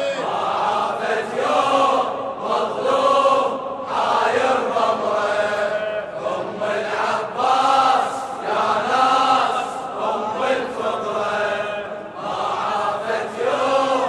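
Male voices chanting in chorus, the sung refrain of an Arabic Shia mourning elegy (latmiya), layered and choir-like.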